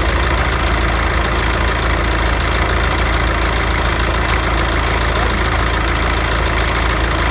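SsangYong Actyon engine idling steadily, with an extra noise from the alternator belt drive. The owner first suspected the tensioner pulley, but it turned out to be a failing alternator overrunning clutch pulley.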